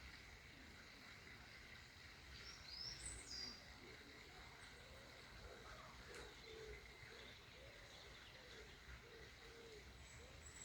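Faint outdoor ambience with a few scattered bird chirps, the clearest a quick high pair about three seconds in.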